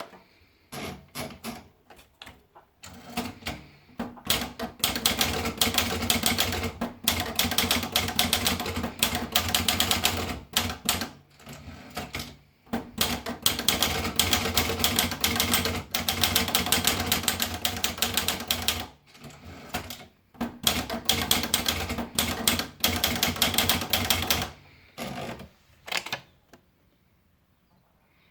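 Olivetti Lettera 25 portable manual typewriter being typed on. A few scattered keystrokes lead into long runs of rapid key strikes broken by short pauses, then a few last strokes before it falls quiet near the end.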